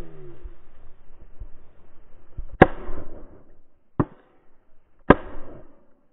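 Three shotgun shots fired at a flying pheasant, the first and last the loudest, spaced about a second and a half then about a second apart, each a sharp blast with a brief ringing tail.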